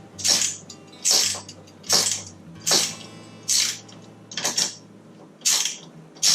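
13 mm ratcheting gear wrench cranking down nuts on bolts, the ratchet clicking in a short burst on each swing, about eight strokes at a steady pace of a little over one a second.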